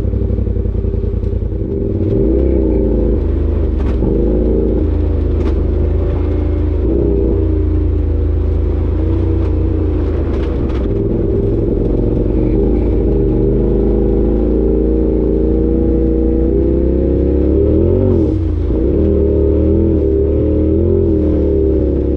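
Side-by-side UTV engine running while driving a rough dirt trail, its pitch rising and falling as the throttle comes on and off, with occasional knocks and rattles from the machine over the terrain.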